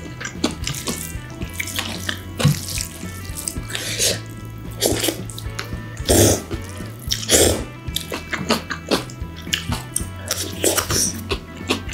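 Water running from a kitchen tap and splashing in a sink in irregular bursts, with background music playing under it.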